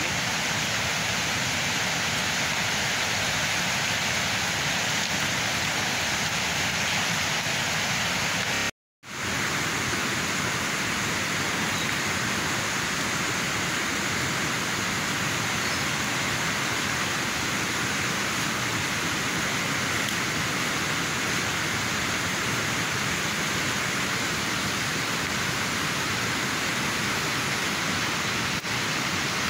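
Steady, even rushing hiss, with no distinct knocks or voices, cutting out for a moment about nine seconds in.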